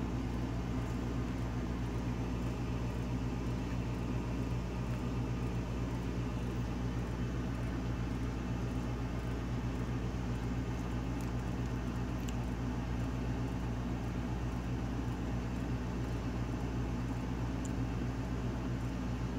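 Steady low mechanical hum of room tone, with a few faint ticks.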